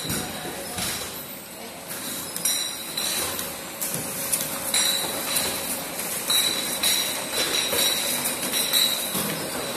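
Automatic bottle labeling machine running: a steady mechanical hum with a high whine that comes and goes, and glass bottles clinking irregularly as they pass through it.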